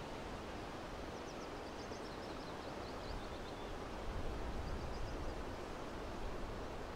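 Steady outdoor wind-like noise with a small bird singing a quick run of high chirps about a second in, and a shorter phrase around five seconds in.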